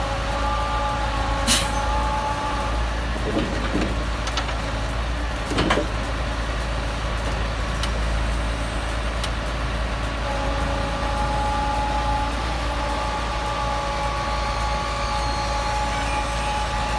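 Hydraulic log-loading crane and its truck's diesel engine running steadily with a constant whine. A few sharp knocks come in the first six seconds, the loudest about a second and a half in and near six seconds in.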